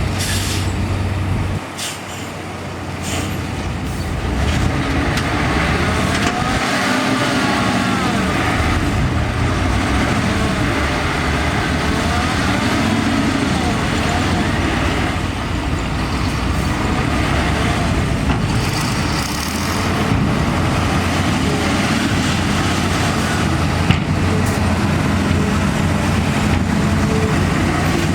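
Heavy ten-wheel diesel dump truck engine running steadily, with its pitch wavering a little.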